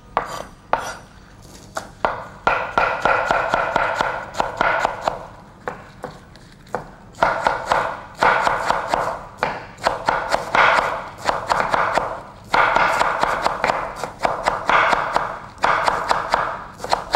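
Cleaver chopping green onions and dill finely on a wooden cutting board: fast runs of knife strikes with short pauses between them.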